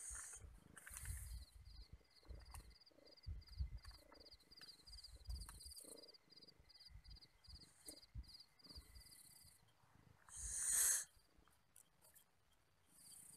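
A cricket chirping steadily, about three high chirps a second, stopping near the end. Under it come low, irregular rustles of a cat rubbing against a leg, and one loud brief rustle about ten and a half seconds in.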